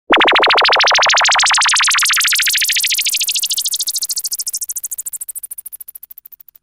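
Electronic synthesizer sound effect: a rapidly pulsing tone that starts suddenly, climbs steadily in pitch, and fades out toward the end.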